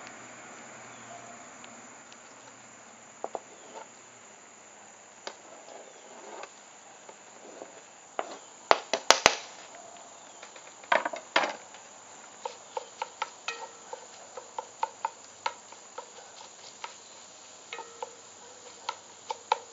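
A wooden spoon stirring sausage, onions and green peppers in a cast-iron Dutch oven, knocking and scraping against the pot under a faint steady sizzle. The loudest knocks come in a cluster around the middle, followed by a run of lighter taps about twice a second.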